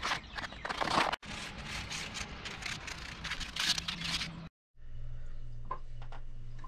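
Quick, irregular scraping strokes of a hand tool working wood, with a brief break about a second in. After a cut about four and a half seconds in, this gives way to a low steady hum with a few faint clicks.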